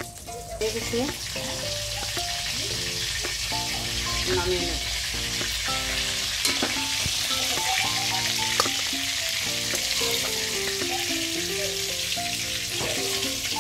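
Fish steaks sizzling as they fry in hot oil in a wok, a steady hiss that starts about half a second in. A melodic tune plays underneath.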